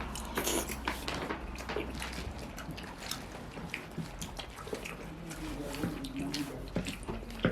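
Close-up eating sounds: wet chewing and smacking of soft food, with many small clicks and squishes. A short low hum of a voice comes about five and a half seconds in.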